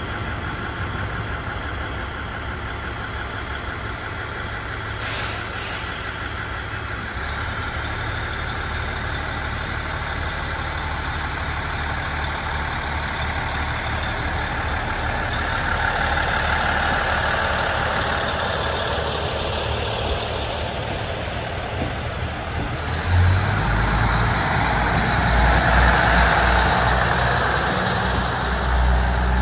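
KiHa 110-series diesel railcar engines running as the train moves off slowly from a stop and passes close by. The low diesel engine sound grows louder in the last several seconds as the cars pass.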